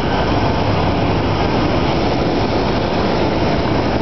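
Steady, loud jet aircraft noise on an airport ramp beside a parked Boeing 757, an even noise with a low hum underneath that holds constant throughout.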